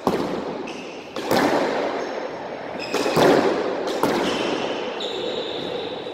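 Squash ball being struck by racquets and smacking off the court walls, several sharp hits a second or two apart, each ringing on in the echo of the enclosed court.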